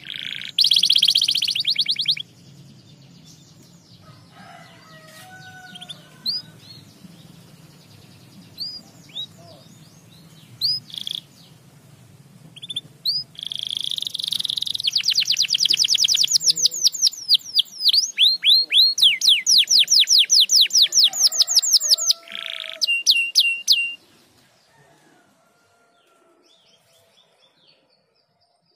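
Domestic canary singing: fast trills of rapidly repeated rising high notes, a loud burst at the start, scattered single chirps, then a long rolling trill of about eight seconds through the middle, dying away to faint notes near the end.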